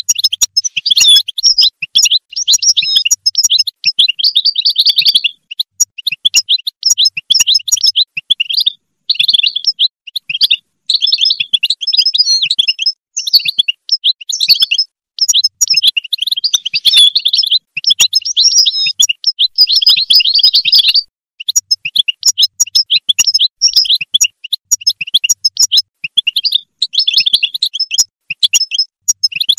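European goldfinch song: quick, high twittering phrases, each lasting one to three seconds, with short pauses between them.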